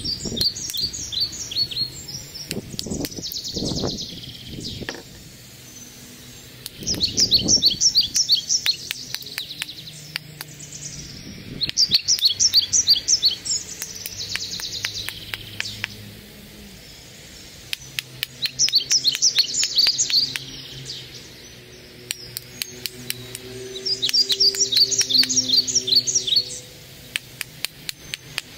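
Hammerstone knapping a red quartzite cobble: many sharp stone-on-stone clicks as flakes are struck off. A songbird sings loud bursts of rapid high trilled notes every few seconds over the knocking.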